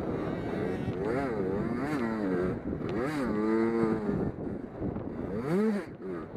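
Several race car engines circling a short oval together, each climbing in pitch on the throttle and falling away as it lifts for the turns, the notes overlapping.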